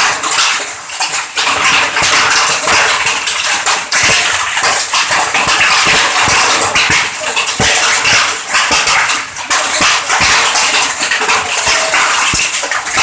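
Hailstorm with heavy rain: a loud, dense hiss of falling rain with many sharp clatters of hailstones striking hard surfaces.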